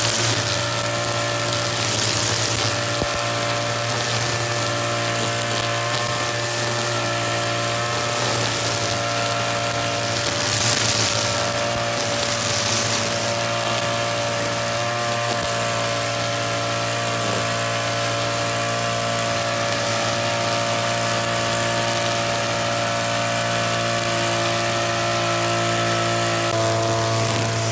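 Petrol string trimmer (brush cutter) running steadily, its nylon line whipping through tall, thick grass. Brief swells of hiss come as the head sweeps into the grass.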